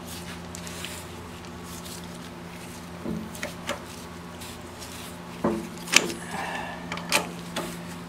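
Metal clinks, knocks and a short scrape from a steel bar turning a forklift wheel-hub nut off its axle threads, in a string of sharp strikes in the second half, the loudest about six seconds in. A steady low hum runs underneath throughout.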